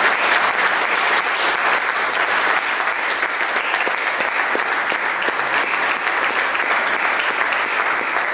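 Audience applauding: a steady stream of many overlapping handclaps.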